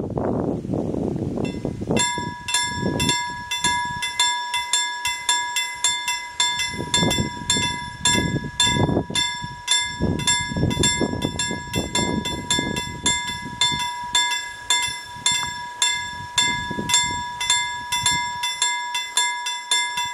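Level-crossing warning bell starting up about two seconds in and ringing on steadily, about two strokes a second: the signal that a train is approaching and the barriers are coming down.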